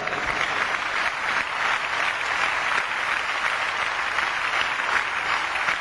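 Audience applauding steadily, a dense even clapping that holds for the whole pause.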